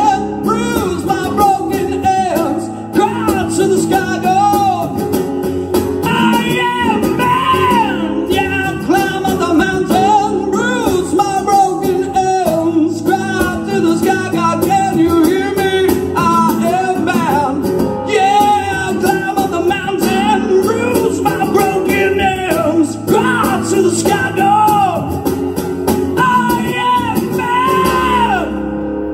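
Live unplugged rock song: a singer belting the vocal line into a microphone over acoustic guitar, the voice dropping out near the end while the guitar plays on.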